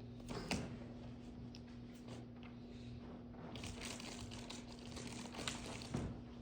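Paper rustling and crinkling with scattered small clicks and knocks, busier in the second half, over a steady low electrical hum.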